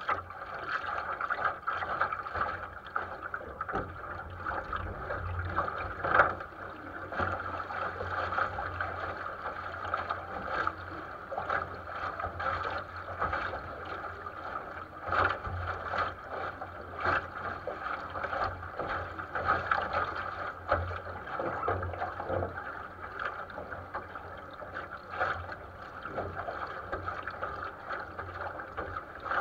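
Water rushing and splashing along the hull of a 470 sailing dinghy under way, with frequent short slaps of water against the boat and some wind.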